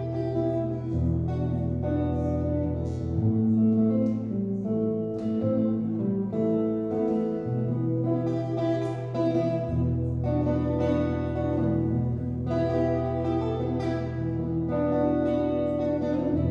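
Solo electric guitar played through an amplifier: picked chords and melody notes over ringing low bass notes that shift every two to three seconds.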